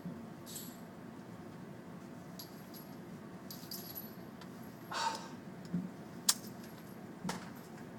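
Faint rustling and a few light clicks and rattles, like gear being handled, with one sharp click about six seconds in.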